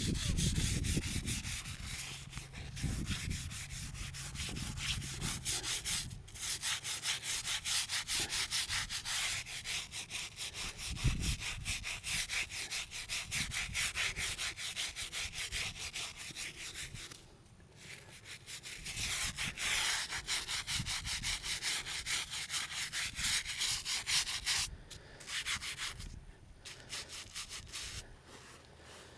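A hand scrub brush scrubbing a stone headstone in quick, even, rhythmic strokes, stopping briefly twice: the marker's dirt buildup being scrubbed off.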